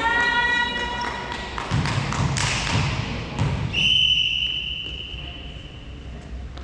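A high squeal at the start, dull thuds of play on a hall court, then one long steady whistle blast of nearly three seconds from a little past the middle, typical of a volleyball referee's whistle.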